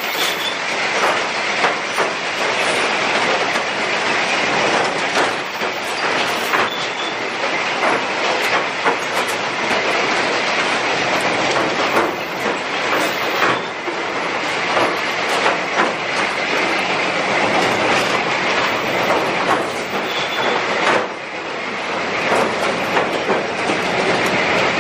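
Track-laying machine at work: a steady mechanical din with frequent metallic clanks and knocks from rails and sleepers being handled.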